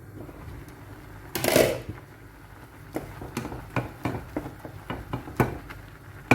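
Kitchenware being handled around a pot of boiling noodles: a short loud burst of noise about one and a half seconds in, then a series of light clicks and knocks, with a sharper knock near the end.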